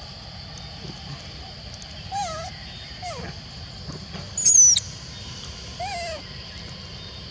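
Four short animal calls over a steady insect drone. Three are lower calls that rise and fall. The loudest, about halfway through, is a high, falling squeak.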